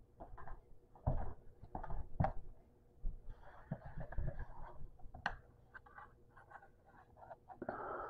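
Irregular rustling and scratching with a few soft thuds, the loudest a little after one and two seconds in, and longer scrapes in the middle and near the end.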